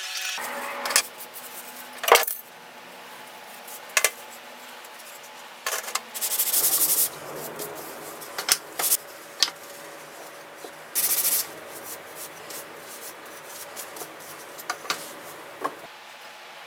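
Hand tools and wood pieces being handled on a workbench: a series of sharp knocks and metallic clinks, the loudest about two seconds in, with two short hissing scrapes about six and eleven seconds in.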